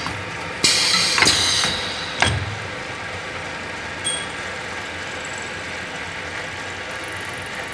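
Special-purpose double cutter and drill machine running with a steady motor hum. About half a second in, a loud hiss lasts about a second, and a sharp knock follows a little after two seconds in.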